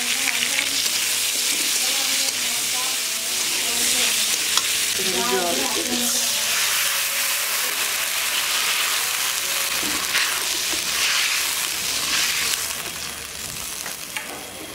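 Mango chutney sizzling in a pan of hot oil as it is stirred. The sizzle grows quieter near the end.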